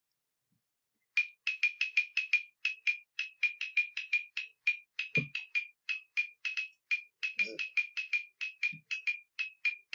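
Web page sound effect: a rapid, slightly uneven string of short high-pitched pings, about five a second, starting about a second in, as checker pieces move across an animated board.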